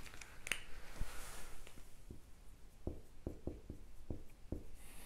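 Dry-erase marker writing a word on a whiteboard: a faint run of light taps and short strokes, about ten in all, most of them packed together about three to four and a half seconds in.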